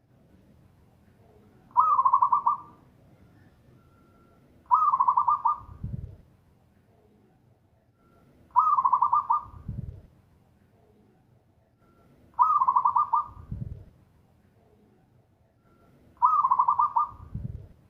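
Zebra dove (local perkutut) singing its song five times, about every four seconds: a rapid stuttering run of high cooing notes, then a deep low coo to close each phrase.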